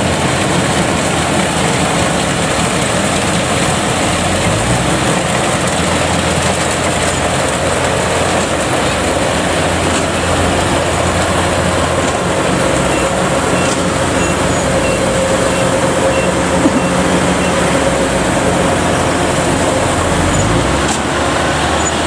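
Kubota DC105X rice combine harvester running under load in soft, sticky mud: a steady engine drone mixed with the clatter of its cutting and threshing machinery. The engine note rises about four seconds in and again near the end.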